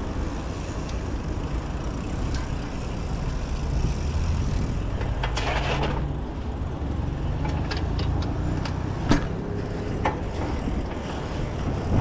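Steady rumble of road traffic, with a few sharp clicks in the last third.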